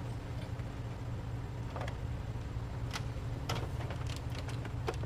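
Steady low hum with a few light, separate clicks and taps, the sound of small parts being handled at a workbench.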